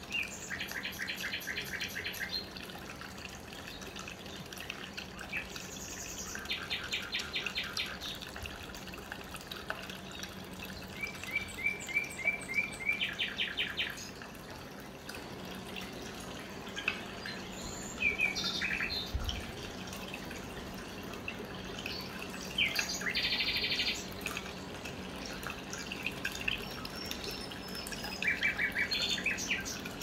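Small tabletop cement waterfall fountain trickling and splashing steadily, under a low steady hum. Birds chirp over it in short bursts of rapid trills every few seconds.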